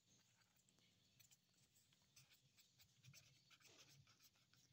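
Faint scratching of a pen on notebook paper as a word is written: scattered short strokes from about a second in, coming more often towards the end.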